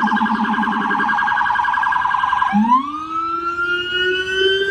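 NYPD police car siren sounding, first in a rapid pulsing tone, then switching about two and a half seconds in to a slow wail that rises in pitch until near the end.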